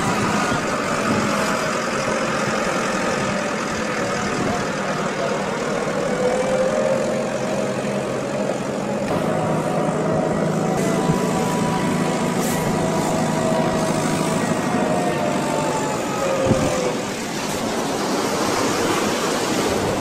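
Road vehicle's engine and road noise heard from inside the cabin while driving: a steady drone with engine tones that slowly rise and fall in pitch.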